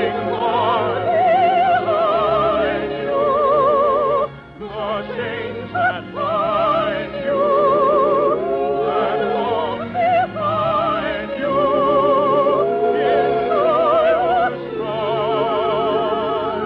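Operatic singing with strong vibrato over orchestral accompaniment: long held notes in short sung phrases.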